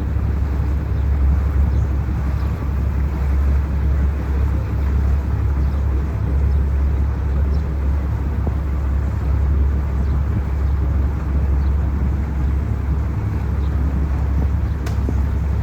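Boat engine running steadily while under way, a constant deep rumble.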